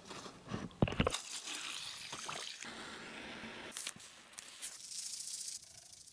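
Knocks against a clear plastic tub about a second in, followed by a steady rush of water. Near the end, scissors snip open a plastic packet of citric acid with a few sharp clicks and crinkles.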